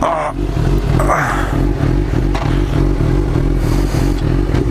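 Suzuki GSX-R 750 K4's inline-four engine idling steadily and loudly through a MIVV GP exhaust with the dB killer removed.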